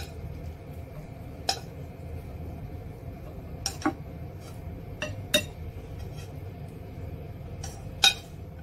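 A spatula clinking and scraping against a wok and a ceramic plate while stir-fried rice noodles are dished out. There are about eight sharp, irregular knocks with a brief ring, over a low steady hum.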